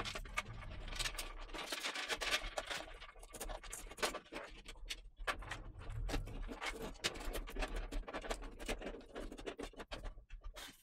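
Cables being pulled out of a computer case: rustling and scraping of the cables against the case's metal panels and cut-outs, with many small clicks and knocks.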